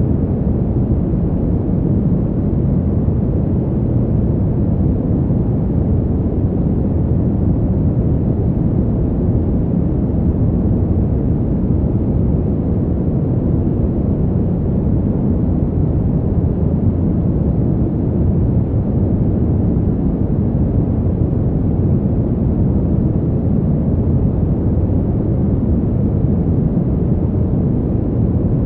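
Fan heater's fan running steadily: an even, deep rush of air that never changes in pitch or loudness.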